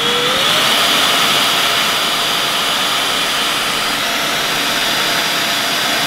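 Bosch BCS612GB cordless handheld vacuum cleaner switched on at the trigger on its normal power setting: the motor spins up with a rising whine over the first second, then runs steadily with a loud whine over the rush of air.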